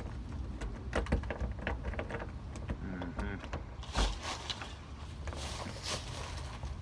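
Irregular clicks and knocks of hand tools working in a door lock while it is being picked or shimmed open, with one louder knock about four seconds in.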